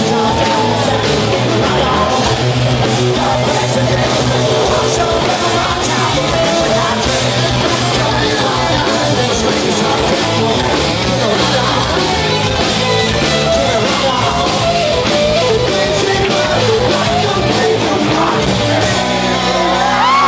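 Hard rock band playing live with distorted guitars, drums and a lead singer. The drums drop out near the end, and a held note slides up in pitch and sustains.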